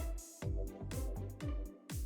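Electronic background music with a steady kick-drum beat.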